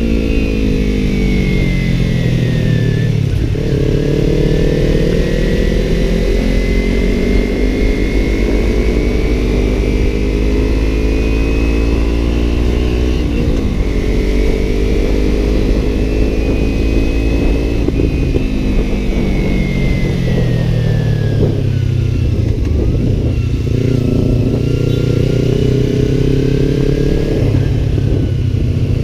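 Sport motorcycle engine heard from the rider's seat with wind rush on the microphone. It slows at the start, then pulls through the gears with a quick drop in revs at a shift about halfway. It eases off again past two-thirds and picks up once more near the end.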